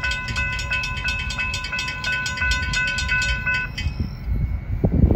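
Railroad crossing bell ringing in quick even strokes as the gate arms lower, then falling silent about three and a half seconds in as the gates reach level. A low rumble runs underneath, with a few thumps near the end.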